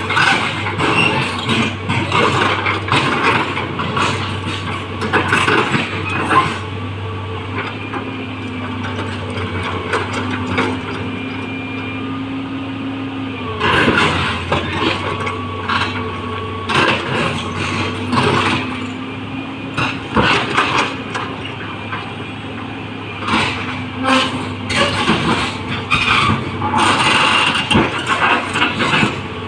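Excavator diesel engine running steadily while the machine works, with frequent clanks and knocks and a held whine for a few seconds midway.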